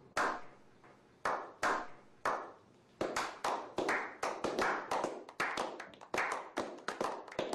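A small group clapping hands in a slow clap: a few single claps spaced about half a second to a second apart, then quickening from about three seconds in to several overlapping claps a second.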